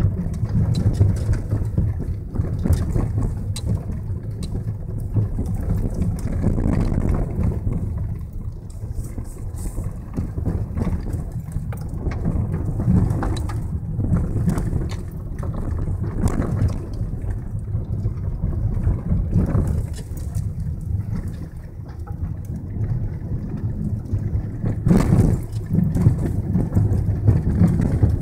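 Vehicle driving over a gravel track, heard from inside the cabin: a steady low engine and tyre rumble with scattered crunching and clicks from the gravel, and a louder thump about 25 seconds in.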